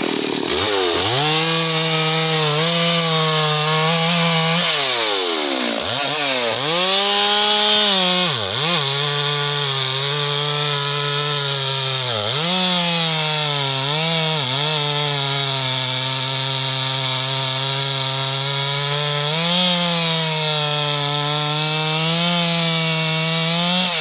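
Stihl two-stroke chainsaw at high revs cutting through a felled teak trunk. Its engine note dips and picks up again several times in the first half, then holds steady under load and drops back at the end.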